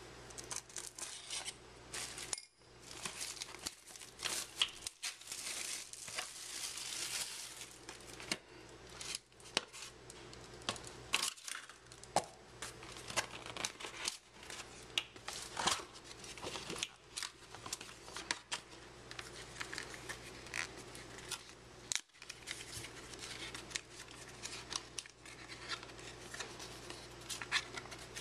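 Plastic shrink-wrap crinkling and tearing as it is cut and stripped from a trading-card box, then irregular clicks and rustles of cardboard as the box lid is lifted and a card holder is opened.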